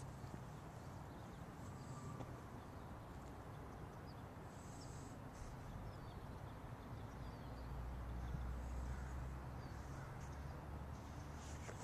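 Quiet outdoor ambience: a low steady rumble that swells about two-thirds of the way through, with a few faint, high bird chirps.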